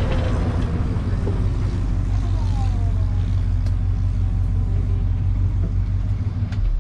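Steady low rumble of a vehicle engine running while moving, with wind on the microphone. It cuts off suddenly near the end.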